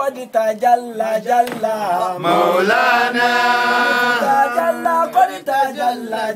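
Men chanting zikr, a devotional invocation of Allah's name, in short sung phrases with a long held note in the middle.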